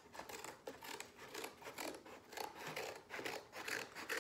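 A blade cutting and scraping at a cardboard box, a run of irregular short scratchy strokes.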